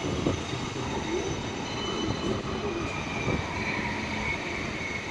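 West Midlands Metro CAF Urbos 3 electric tram passing close by: a steady rumble of wheels on rail, with a thin high whine through the second half.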